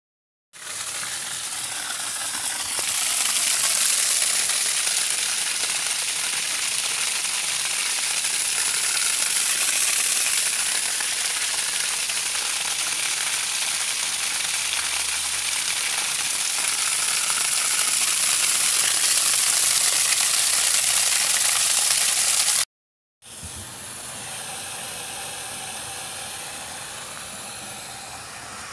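A 1 hp Goulds submersible well pump discharging a high-pressure jet of water from the pipe on top of the well casing: a loud, steady hissing rush. It cuts off suddenly about 23 seconds in, and a quieter steady hiss follows.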